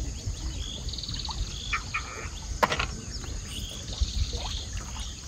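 Outdoor river ambience: a steady low rumble from the shallow river, with scattered short high bird chirps and two brief buzzy trills, about a second in and again near the end.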